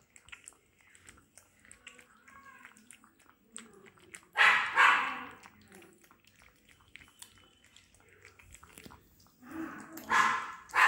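A Lhasa Apso puppy eating from a plastic bowl, making faint small clicking and smacking sounds. A dog barks loudly twice, once about four seconds in and once near the end.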